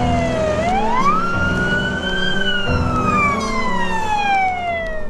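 Ambulance siren wailing: the pitch falls, rises sharply about half a second in, then falls slowly for the next few seconds.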